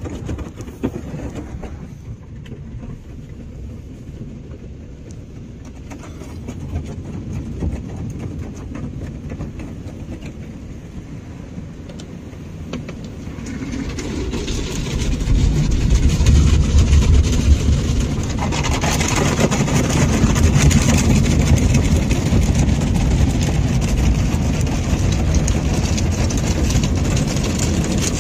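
Ryko SoftGloss XS 2 in-bay automatic car wash heard from inside the vehicle's cab: water spray and the wash machinery drumming on the body and windows as a steady rumbling hiss. The sound swells about half way through and grows into a louder, brighter hiss that stays up as the spray hits the glass.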